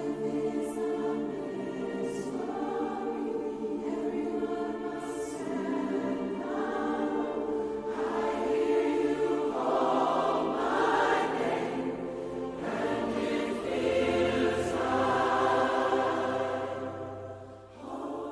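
Background music with choral singing: sustained voices swelling and fading over held low notes.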